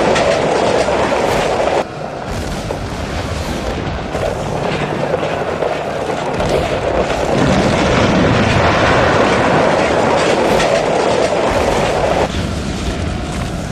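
Film battle soundtrack of a massed cavalry charge: many horses galloping in a dense, rolling clatter, with men shouting. The mix changes abruptly about two seconds in and again near the end.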